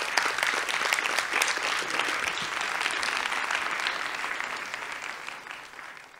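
Audience applauding, many hands clapping together; the applause fades out near the end.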